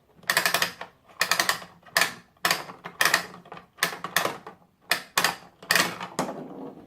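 Plastic toy gumball machine's dispensing knob being twisted round, its ratchet giving short runs of rapid plastic clicks about twice a second.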